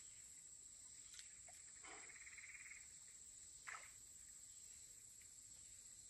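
Faint, steady high-pitched drone of insects in summer vegetation, near silence otherwise, with a few soft clicks and a brief faint rustle in the middle.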